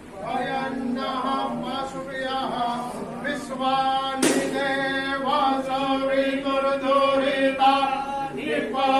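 A group of voices chanting a prayer together on long, held notes, with one sharp click about four seconds in.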